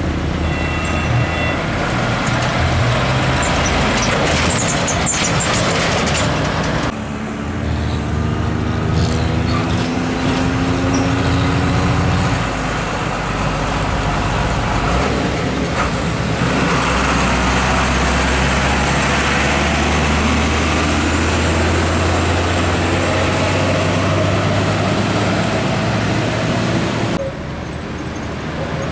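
Heavy diesel container trucks' engines running loud as they pass close by. About seven seconds in, one truck's engine note climbs as it accelerates.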